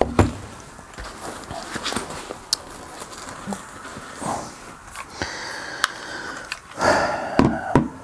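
Handling noise of gear being taken from a camera backpack: scattered light knocks and clicks, a rustle of fabric about five seconds in, and a louder rustle and knock near the end.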